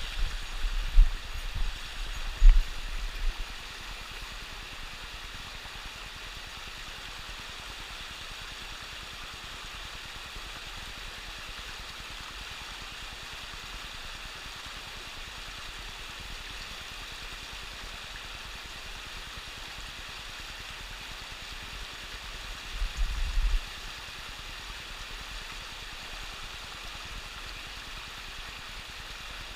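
Mountain stream water running steadily, a continuous rushing hiss. Low rumbling thumps break in during the first three seconds and again briefly about three quarters of the way through.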